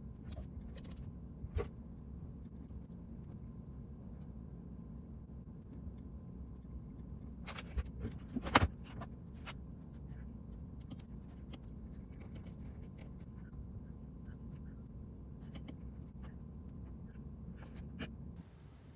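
Light clicks of typing on a laptop keyboard and taps of a stylus on a tablet screen, scattered and irregular, with one louder tap about halfway through, over a steady low room hum.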